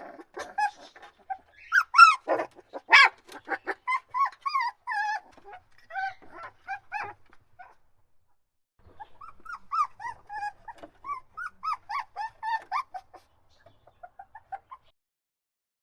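Puppy crying and whining: a run of short, high-pitched whimpers and yelps, the loudest about two to three seconds in. After a short pause in the middle, more quick whimpers follow and stop near the end.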